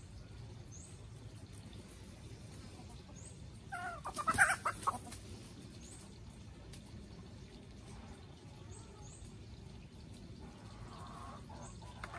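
Free-range chickens calling: one loud call a little over a second long about four seconds in, then fainter clucking near the end, with faint short high chirps now and then.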